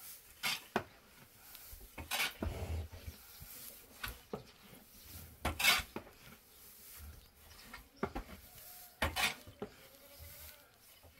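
Scattered clinks and knocks of pots and dishes, with goats bleating now and then.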